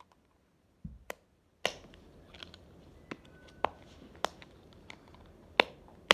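Triple dimple fidget toy's bubbles being pushed in, a sharp click with each press, about nine clicks spaced roughly half a second to a second apart.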